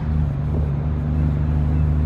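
Heavy truck's diesel engine running steadily with a low hum, heard from inside the cab.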